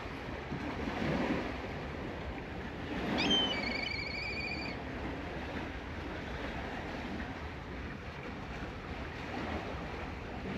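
Sea surf washing steadily, with wind. About three seconds in, a high whistled call drops in pitch and then quavers for about a second and a half.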